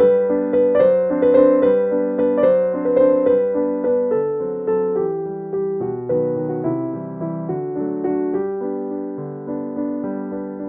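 Background piano music: a gentle melody of struck notes, each fading after it sounds.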